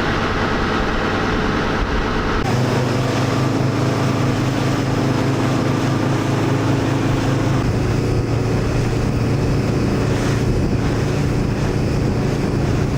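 Fishing boat's engine running steadily under way, a constant low drone with wind and water noise; the drone changes abruptly about two and a half seconds in.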